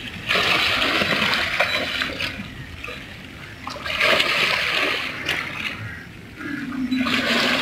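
A hooked barracuda thrashing at the water's surface, splashing in three bursts: one right at the start, one about four seconds in and one near the end. A low steady hum joins near the end.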